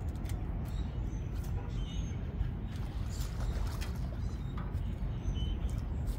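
Steady low rumble of nearby road traffic, with scattered light clicks and a few short bird chirps.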